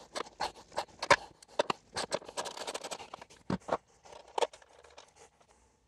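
Hand wrenches clicking and scraping in irregular strokes on a nutsert installer bolt, cinching a steel rivet nut down against the back of the battery-tray sheet metal. The clicks thin out and stop after about four and a half seconds.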